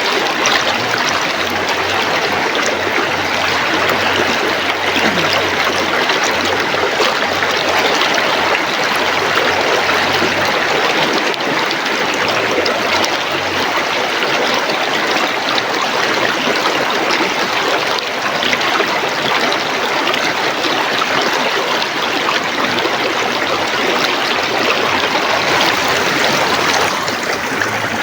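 River water rushing and babbling over rocks, a steady loud flow.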